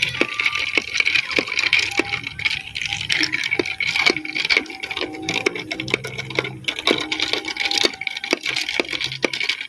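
Metal spoon stirring ice cubes in a glass of iced drink: a quick, irregular run of clinks and rattles of ice and spoon against the glass, some ringing briefly.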